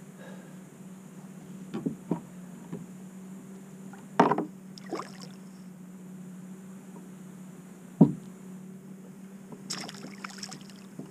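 A hooked snapper thrashing and splashing at the surface beside an inflatable kayak, with scattered sharp knocks and splashes and a quick cluster of splashes near the end, over a steady low hum.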